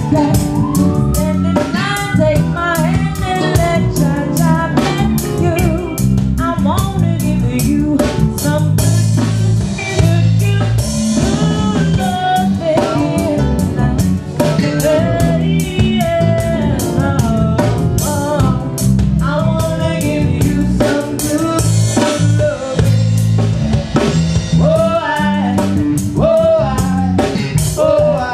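Live reggae band playing: drum kit and guitar on a steady beat, with a singer's voice over it.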